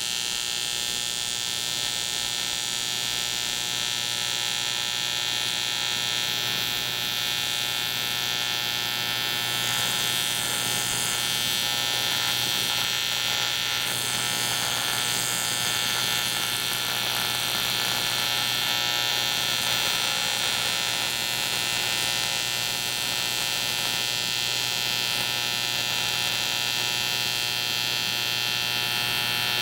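AC TIG welding arc buzzing steadily on the cracked aluminium case of a 1947 Harley-Davidson knucklehead engine.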